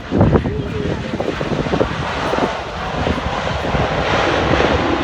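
Airliner on landing approach passing close by: a broad rushing engine noise that swells to its loudest near the end, then starts to fade. Wind buffets the microphone underneath.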